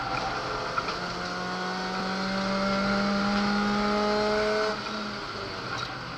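Naturally aspirated 2.0-litre four-cylinder engine of a Ford Focus heard from inside the cabin, pulling hard under acceleration with its note rising steadily. About three-quarters of the way through the note falls away abruptly and the engine runs on at lower revs.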